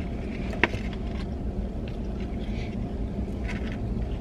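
Steady low rumble of a car idling, heard from inside the cabin, with one sharp click just over half a second in.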